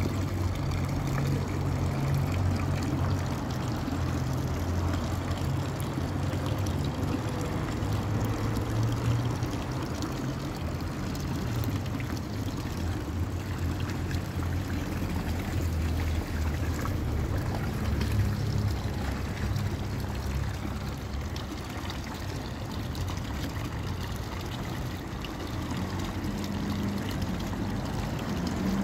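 Thin stream of water from a stone fountain's spout splashing into the shallow basin, a steady trickling, with a low rumble underneath.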